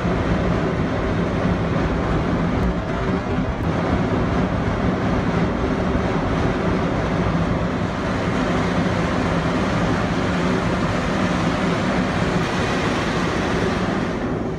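Steady rushing roar of an uncontrolled well blowout at a land drilling rig, with gas and dust blasting out around the rig floor, and a steady low hum underneath.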